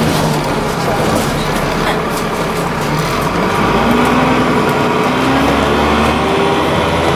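Dennis Trident double-decker bus heard from inside the lower deck while running. Its engine and drive note rise in pitch from about halfway through as the bus gathers speed.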